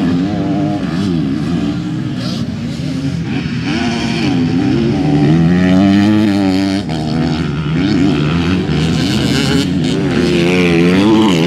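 Motocross bike engines revving, their pitch rising and falling over and over with the throttle and gear changes, growing a little louder near the end.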